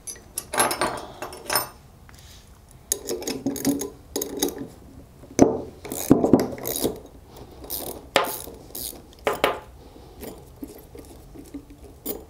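Two 7/16 wrenches clicking and clinking against the nuts on the threaded tie-rods of a stacking air-valve block as the nuts are loosened. The sound comes in several short bursts of rapid metal clicks.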